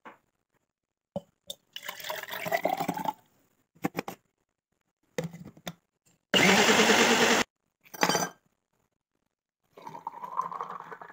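Kitchen sounds in quick cuts: liquid poured into a bowl with a rising filling sound, clinks of a spoon and glass, then a small personal blender running loudly for about a second as it blends coconut flesh and water. Near the end the blended coconut drink is poured into a glass.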